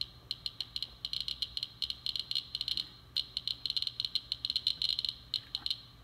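Geiger counter clicking quickly and irregularly in bunches, its probe held close over a smoke detector's uncovered americium-241 source; the high count rate is the radiation from the source.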